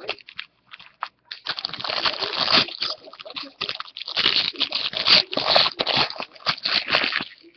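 Foil wrapper of a Topps Museum Collection football card pack being torn open and crinkled by hand, crackling in two spells, the second longer.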